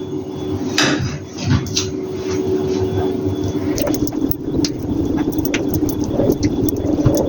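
Electric hand mixer running steadily in a bowl of cake batter as flour is worked in, its beaters rattling and clicking against the bowl. Its hum drops slightly in pitch a little over halfway through.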